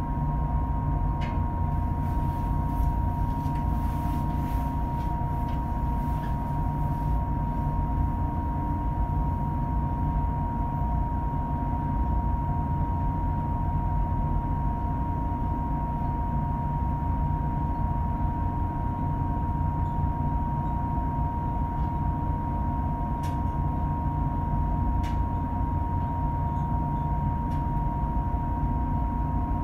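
Steady low engine rumble of a passenger ferry heard from on board, with a constant high whine above it.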